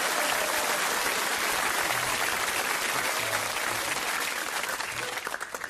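Audience applauding, a dense steady clatter of clapping that dies away abruptly near the end.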